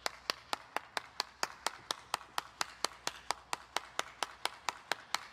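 One person clapping hands steadily, about four claps a second.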